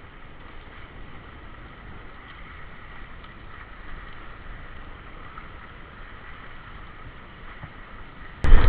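Steady rush of wind and water around a sailboat under way, with no engine note. About eight seconds in, a sudden much louder burst of noise cuts in.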